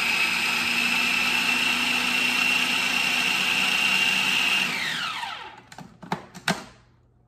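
Food processor motor running with a steady high whine as it beats eggs for a quiche filling. About five seconds in it is switched off and winds down with a falling pitch. A few sharp clicks and knocks follow.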